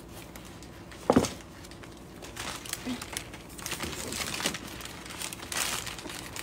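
Gift packaging rustled and crinkled by hands rummaging through a box. There is a single sharp knock about a second in, and the rustling comes in irregular bursts from the middle onward.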